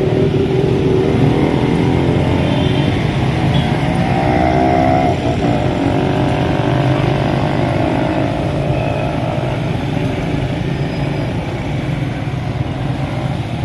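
Road traffic: motorcycle and car engines running close by.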